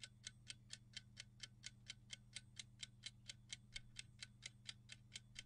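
Quiet clock-ticking sound effect, fast and even at about four ticks a second, over a faint low hum.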